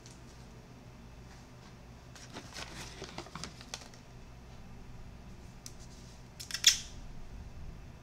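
Small clicks and rattles of objects being handled on a counter, with one sharp, loud click about two-thirds of the way through.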